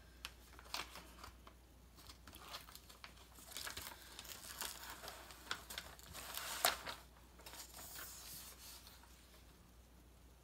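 Clear plastic cover film and paper liner being peeled off and laid back down on a sticky diamond painting canvas. It gives faint, irregular crinkling and tearing crackles with a few sharp ticks.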